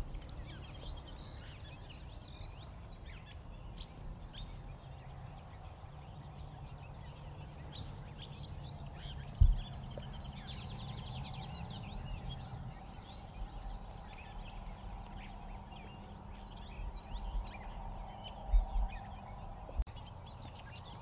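Songbirds chirping and singing steadily over a low background rumble. There are a few short thumps, a sharp one about nine and a half seconds in and a couple more near the end.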